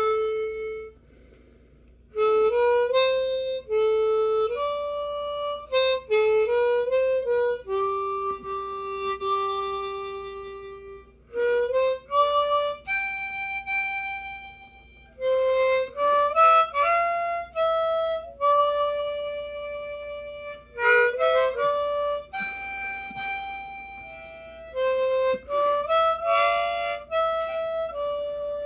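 A large old harmonica with extra low notes plays a slow traditional dance tune. The melody is a single line of held notes, broken by short breaths between phrases.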